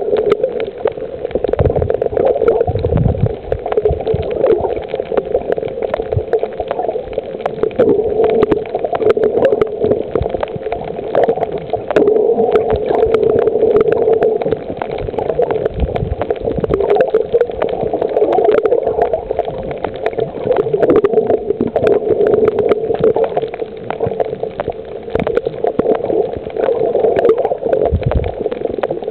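Muffled water sloshing and gurgling around a camera moving through the sea while snorkelling, with many small clicks and pops throughout.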